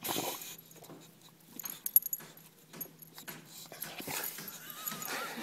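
Boxer dog sniffing and snuffling at close range as it noses and paws through grass, in short irregular bursts of rustling, with a sharp click about two seconds in and a brief high, wavering whine near the end.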